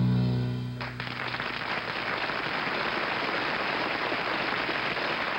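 A song's final piano chord ringing out and fading, then studio audience applause from about a second in.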